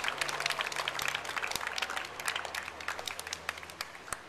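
Small crowd applauding. The clapping thins out and fades away near the end.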